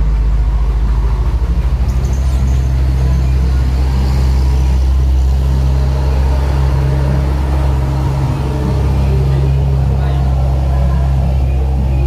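Heavy diesel trucks running past on the road close by, a steady deep engine rumble throughout.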